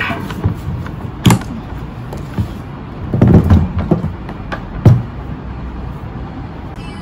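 Knocks and bumps of a portable electric cooktop being handled and set down on a table: a sharp knock a little after one second, a cluster of bumps around three seconds in, and the loudest knock near five seconds. A steady low rumble runs underneath.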